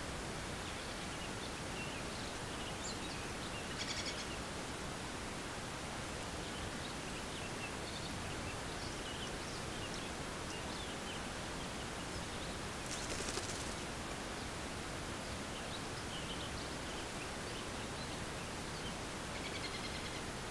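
Steady hiss from a trail camera's microphone, with faint high bird chirps scattered through it. Three short harsh, rasping calls of a Steller's jay stand out: about four seconds in, in the middle, and near the end.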